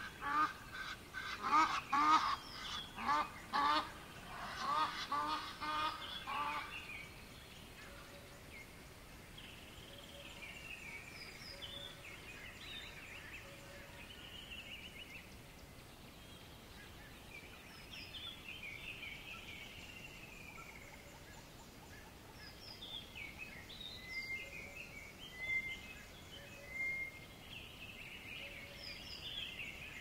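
Goose honking in a quick run of repeated calls, several a second, for the first six or seven seconds. After that, small birds call on and off over the faint steady rush of river water.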